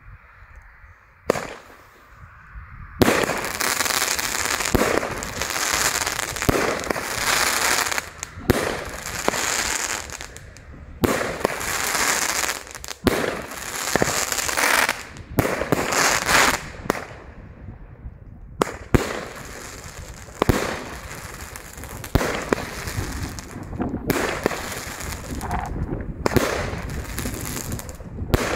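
A Titus firework battery (28 shots in 30 mm tubes) firing. One sharp shot comes about a second in, then from about three seconds in a rapid string of shots and bursts with dense crackling, briefly dropping off near the middle before picking up again.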